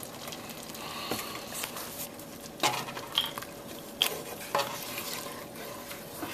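Cream being stirred into simmering spinach in a metal pot, the utensil knocking sharply against the pot about four times midway, over a steady low simmering sizzle.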